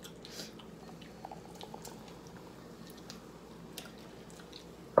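People eating noodles at a table: soft chewing and small scattered clicks, then a single sharp knock near the end.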